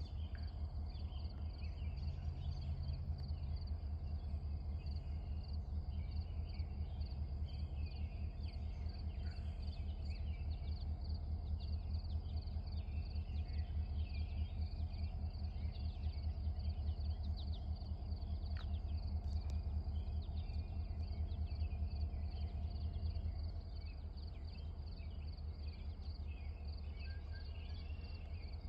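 Low, steady rumble of a distant diesel locomotive approaching, easing slightly near the end, under a steady chorus of crickets and other insects chirping.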